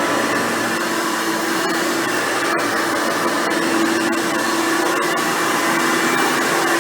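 Hoover Futura Dimension upright vacuum cleaner, with a 7-amp motor and a 7-bladed fan, running steadily while cleaning: a loud, even rush of air with a steady hum.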